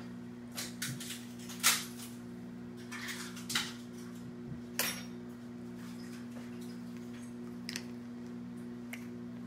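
Irregular clinks and knocks of a spoon and small hands against a stainless-steel bowl and plastic high-chair tray as a baby feeds herself, the sharpest nearly two seconds in, over a steady low hum.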